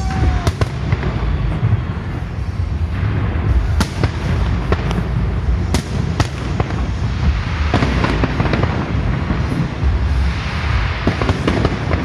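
Fireworks in a dense barrage: repeated sharp bangs and crackling over a continuous low rumble, with the sharpest reports near the start and again around four and six seconds in.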